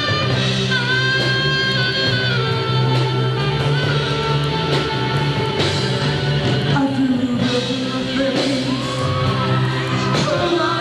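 Rock band playing live, a saxophone holding long notes over bass and drums. Near the end the audience begins to yell and whoop.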